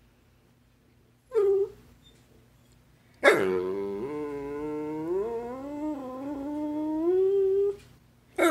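Basset hound vocalising: a short yip about a second in, then a long drawn-out howl of about four and a half seconds that slowly rises and wavers in pitch, and the start of another loud howl right at the end.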